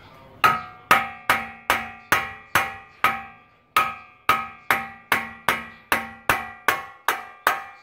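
Hammer striking the CV axle at the wheel hub in a steady run of ringing metal blows, about two and a half a second with one short pause near the middle, tapping the axle shaft loose from the hub.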